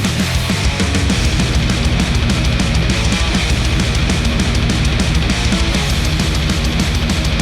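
Heavy rock music with electric guitars and drums, played back through headphones and picked up by microphones at the earcups.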